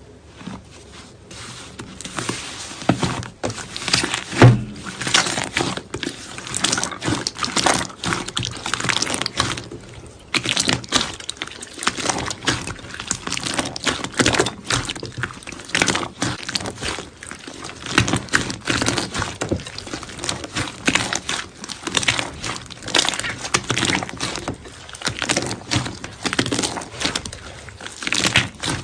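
Slime being worked by hand: a dense, irregular run of sticky clicks and crackles, with one louder knock about four seconds in.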